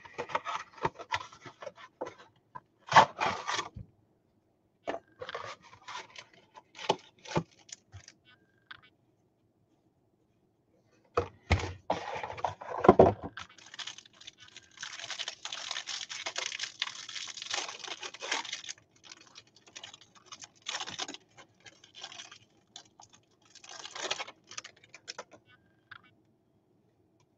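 Trading-card pack wrapper crinkling and tearing, and a stack of baseball cards being handled and slid against one another, in scattered bursts. There is a quiet gap of about two seconds partway through, then a longer stretch of steady rustling.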